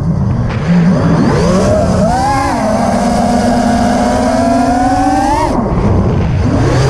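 FPV drone's brushless motors and propellers whining, the pitch rising and falling with the throttle: it climbs about two seconds in, holds a steady high whine, then drops away about five and a half seconds in before rising again near the end. Wind rushes over the onboard microphone underneath.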